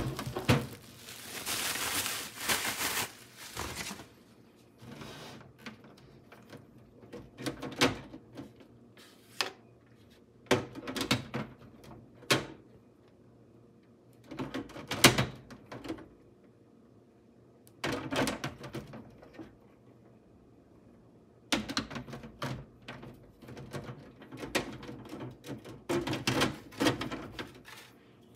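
Unboxing handling sounds from a food dehydrator's packaging and parts: rustling packaging for the first few seconds, then scattered knocks, clicks and rustles in short bouts with quiet pauses between them.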